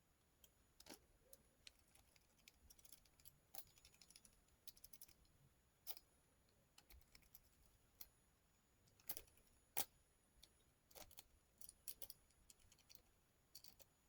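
Lock pick being raked gently through a pin tumbler lock: faint, irregular metallic clicks and ticks of the pick against the pins, with a few sharper clicks about two-thirds of the way through.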